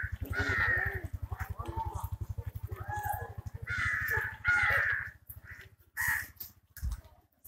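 Crows cawing: several harsh caws, two of them close together about four seconds in.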